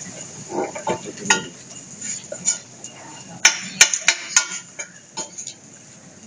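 Metal spoon stirring and scraping curry in a stainless steel pan, with a quick run of sharp clinks against the pan about three and a half to four and a half seconds in.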